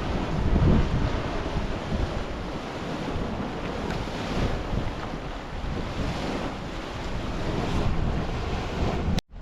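Wind buffeting the microphone over the steady churning and surging of a boiling mud pool, rising and falling in gusts. The sound cuts off abruptly near the end.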